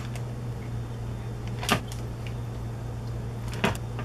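Marinated short ribs being handled into a zip-top plastic bag set in a glass dish: two sharp knocks about two seconds apart, over a steady low hum.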